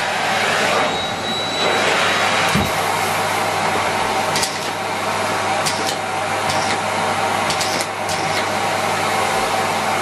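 Miele Complete C3 canister vacuum cleaner running steadily while it sucks up biscuit crumbs from carpet, with short sharp clicks from the second half on as crumbs rattle up through the hose. There is a dull knock about two and a half seconds in.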